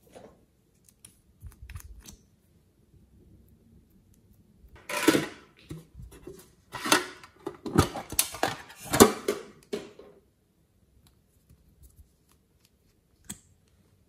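Hard plastic toy cases and packaging handled close up: a series of clicks, rattles and scrapes, loudest in a cluster from about five to ten seconds in.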